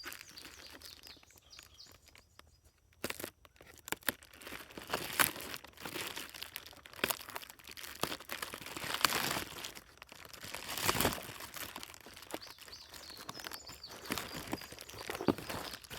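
A cardboard parts box and its packing being handled and torn open: irregular crinkling, tearing and rustling with scattered sharp crackles.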